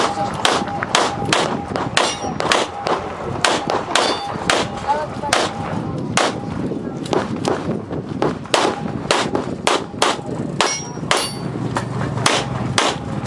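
A rapid string of pistol shots from an IPSC Production-division handgun, roughly two a second at uneven spacing, sometimes two in quick succession, as the shooter works through a stage.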